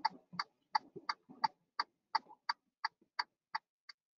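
Short, sharp ticks repeating evenly about three times a second inside a semi-truck cab, with faint low rumble between them.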